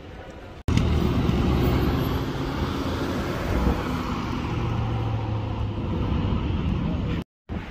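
Lamborghini Urus twin-turbo V8 running loud and deep as the SUV pulls away and drives off, starting suddenly about half a second in and cutting off abruptly near the end.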